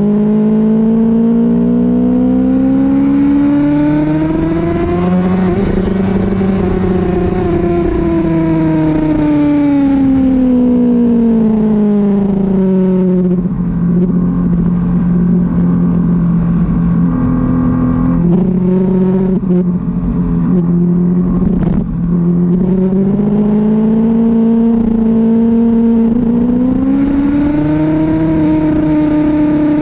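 Sport motorcycle engine heard from on board at track speed. It revs up over the first few seconds, then winds down as the bike slows for a corner, holds lower through the middle with a few short blips, and climbs again near the end.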